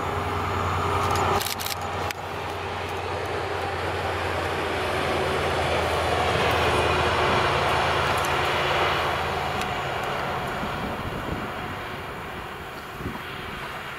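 ST48 diesel shunting locomotive running light, its engine giving a steady low drone that grows louder as it comes close, loudest about halfway through, then eases off. The sound breaks briefly about a second and a half in.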